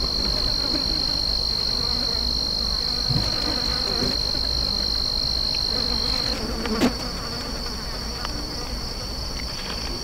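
A steady, high-pitched drone of insects calling. The thinnest, clearest tone cuts off about six seconds in while the rest of the drone carries on, and a single brief thump comes a moment later.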